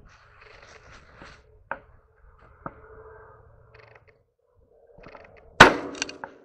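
A cleaver chopping into a raw rabbit carcass on a wooden cutting board: one sharp, loud chop about five and a half seconds in, followed by a few lighter knocks. Before it, quiet handling of the meat with a couple of small clicks.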